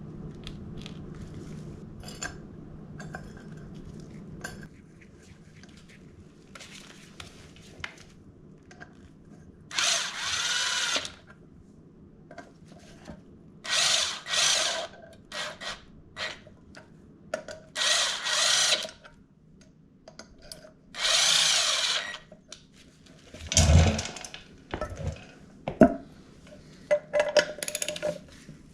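Cordless power drill/driver running in bolts coated with thread locker, probably the rear sprocket bolts. It runs in four short bursts of about a second each, with tool and parts clatter and a heavy knock between them.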